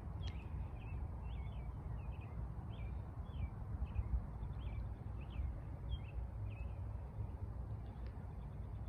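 A bird chirping: a run of short, repeated chirps, about two a second, that stops a little past halfway, over a steady low rumble.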